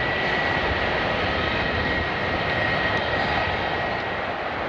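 Jet airliner engines running: a steady high whine over a broad, even rush.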